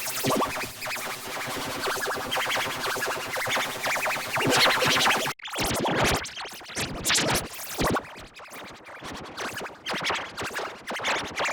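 Electronic, heavily effects-processed music with scratch-like sounds. It cuts off abruptly about five and a half seconds in, then resumes in a choppier pattern.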